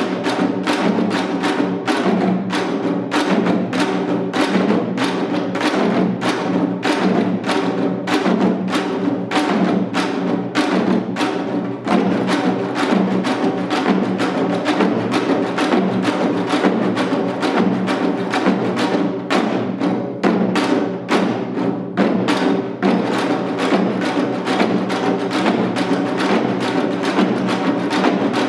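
Janggu, the Korean hourglass drum, played in the seated seoljanggu style: a fast, driving rhythm of dense strokes on both drumheads, about two to three strong beats a second, without a break.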